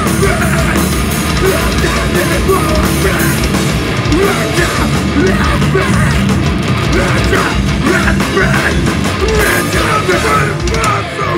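Heavy rock band playing live and loud through a club PA: distorted electric guitars, bass and drums, with shouted vocals over the top.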